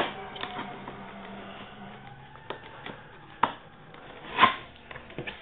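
Cardboard packaging of an aquarium kit being opened and handled by hand: scattered clicks, scrapes and rustles, with two louder sharp knocks or rips about three and a half and four and a half seconds in.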